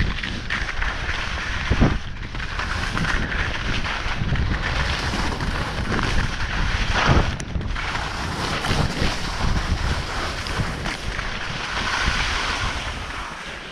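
Wind buffeting a skier's action-camera microphone, with skis hissing and scraping over the snow during a downhill run; the noise eases off near the end.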